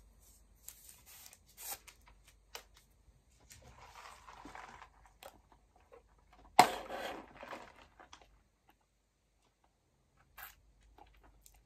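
Rustling and tearing of a straw wrapper with small clicks, then a sharp crack about halfway through as a straw is pushed through the lid of a McDonald's drinks cup, with a second of crackle after it.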